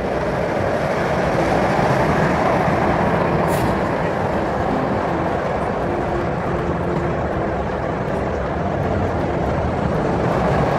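Roller coaster cars rolling along the track: a steady rumbling roar with no breaks.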